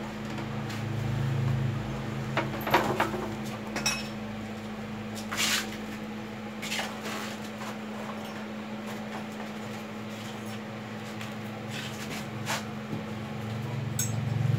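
Scattered metal clanks and knocks as a metal bar is positioned and clamped in the steel vise of an abrasive cut-off saw, over a steady low hum.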